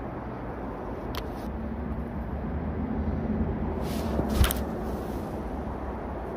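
Steady rumble of traffic on the overhead expressway. A sharp click comes about a second in. About four seconds in, a baitcasting cast swishes and the Shimano 19 Antares HG reel's spool spins out line, peaking in one brief sharp sound.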